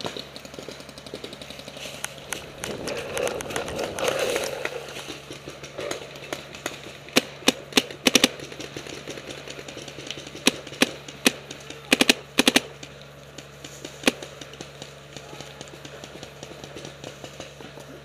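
Paintball markers firing: sharp pops, some single and some in quick bursts of three or four, with two volleys around the middle and a few scattered shots on either side.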